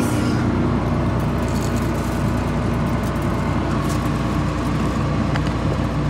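Combine harvester's diesel engine running steadily, heard up close.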